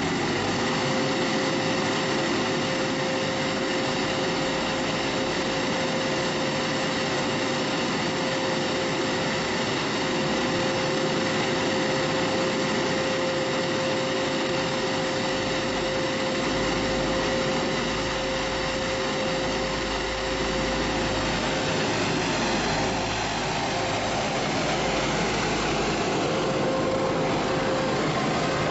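Large electric-motor centrifugal blower fan running steadily on a 2.8 kW gasoline generator's power: rushing air with a steady whine, the generator's engine running under the load beneath it. The whine rises slightly and settles about a second in.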